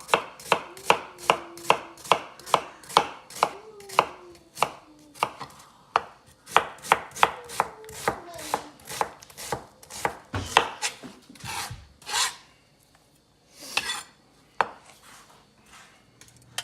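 A knife chopping on a cutting board in a steady rhythm of about three strokes a second. The strokes stop about ten seconds in, followed by a few scattered knocks.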